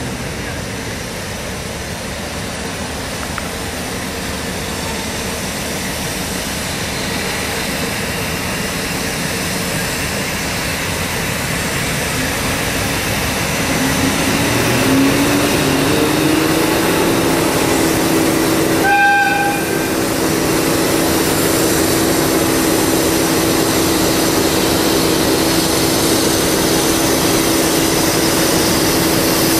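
Narrow-gauge diesel locomotive running as it pulls slowly toward the listener. Its engine note climbs between about 13 and 17 seconds in as it takes power, then holds steady. Its horn gives one short toot at about 19 seconds.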